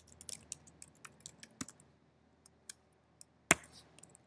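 Typing on a computer keyboard: a quick run of keystrokes for about a second and a half, then a few scattered key presses, the loudest one about three and a half seconds in.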